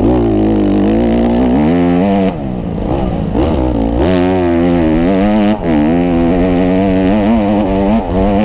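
Motocross bike engine running hard at close range under race throttle, its pitch climbing and dropping again and again as the throttle is opened and closed, with brief dips about two and five and a half seconds in.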